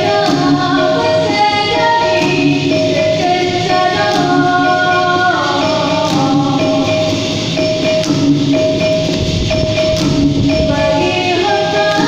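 Dikir barat performance: a female lead singer sings a melody through a microphone and PA over tambourine-like percussion.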